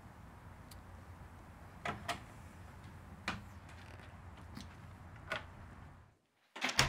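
Faint low room hum with a few scattered quiet clicks and creaks. The hum cuts out about six seconds in, then two quick, loud, sharp knocks follow near the end.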